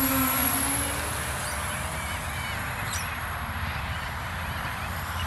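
FPV quadcopter flying past close overhead, its motor hum sliding down in pitch as it goes by, then fading into a steady low rumble as it flies off into the distance.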